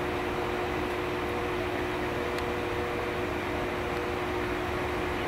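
Steady drone of a train approaching slowly over station track, with a constant hum on two steady notes.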